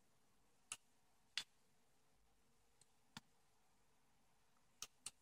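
Near silence broken by a handful of faint, irregular clicks: a soldering iron tip and fingers working on a keychain camera's small circuit board while the battery leads are desoldered.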